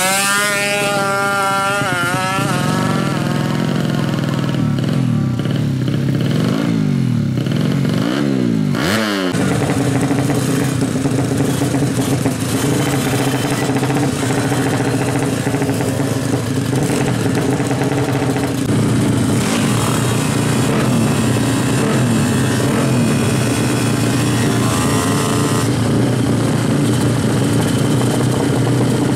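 Drag-racing motorcycle engines revving, the pitch climbing over the first few seconds and then rising and falling a few seconds later, before settling into a steady, loud running note.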